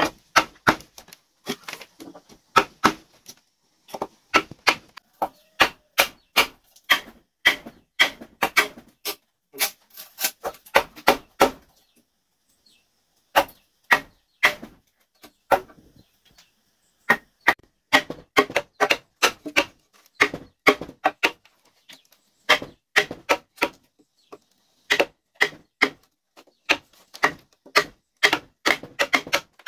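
A tool striking a wooden pole again and again, about two to three sharp knocks a second. The knocks come in bursts with short pauses between them.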